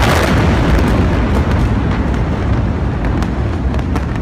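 Massive chemical warehouse explosion: a loud, deep noise of the blast runs on after it struck just before, with a few sharp cracks now and then.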